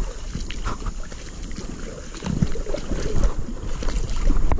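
Shallow rapids of a small forest stream running over rocks, with scattered knocks and rustles from the angler moving on the bank.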